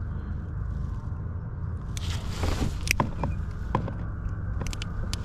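Handling noise as pliers work a hook out of a small yellow perch held over a kayak: a rustling scrape about two seconds in, then a few sharp clicks and taps, the last of them near the end. A steady low rumble runs underneath.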